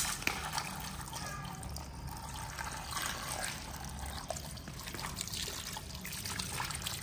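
Water pouring and trickling over raw pork trotters as they are rinsed and rubbed by hand, over a steady low hum.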